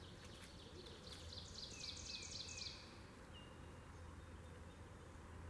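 A songbird sings one fast, trilling phrase of rapidly repeated high notes starting about a second in, then gives two short single whistles, over a faint steady background hum.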